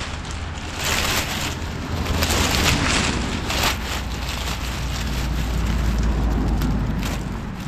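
Dry twigs and fallen leaves rustling and crackling as a hand pushes through the forest-floor litter, loudest from about a second to four seconds in, over a steady low rumble.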